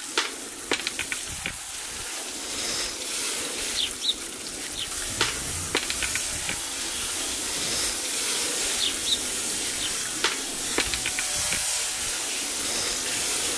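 Outdoor shower spraying steadily, water hissing and splashing onto a person and a kiteboard, with a few sharp clicks and splats.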